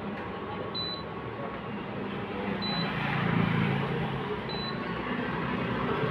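Induction cooktop running with a steel pot of water on it, its cooling fan and coil humming; the hum grows about halfway through as the pot heats. A faint short high beep comes about every two seconds.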